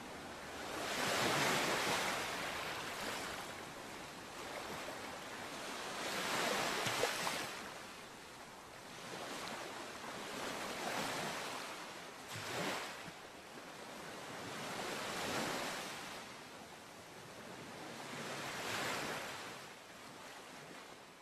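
A surf-like rushing noise that swells and fades every few seconds, like waves washing in and drawing back.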